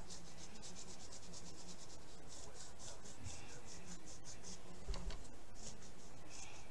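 Finger ink dauber rubbing and dabbing ink through a brick-wall stencil onto paper: runs of quick scratchy strokes, several a second, with short pauses, and a soft knock about five seconds in.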